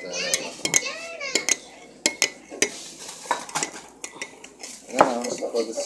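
Metal spoon stirring a drink in a ceramic mug, clinking against the sides again and again in irregular taps. Brief voice sounds come in near the start and again near the end.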